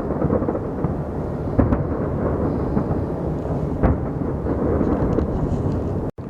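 Fireworks exploding in a dense barrage, a continuous rumble of overlapping booms with a few sharper bangs standing out. The sound drops out for a split second near the end.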